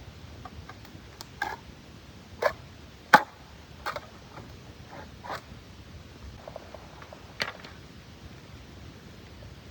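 About six sharp knocks and cracks at irregular intervals, the loudest a little past three seconds in, over a faint steady hiss.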